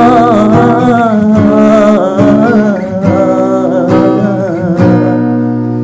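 Acoustic guitar strumming chords under a held, wavering sung note. The last chord, a little before the end, rings on and slowly fades.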